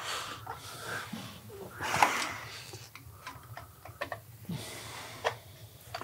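Small metal clicks and taps of a screwdriver tightening a screw on a motorcycle engine, with a couple of loud breaths near the start and about two seconds in.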